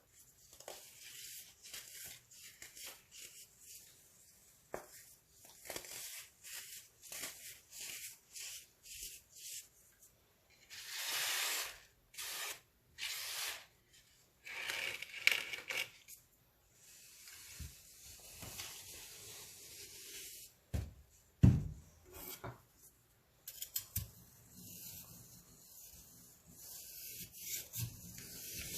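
Baking soda being crunched and crumbled: a string of short gritty crunches, with a few longer, louder ones in the middle and a sharp knock about two-thirds of the way through.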